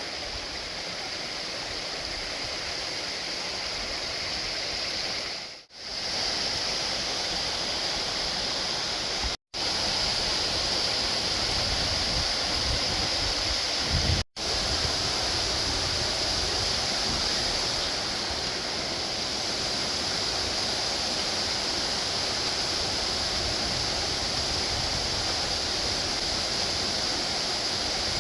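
Rushing water of a woodland waterfall pouring steadily. The sound cuts out briefly three times, about 6, 9 and 14 seconds in.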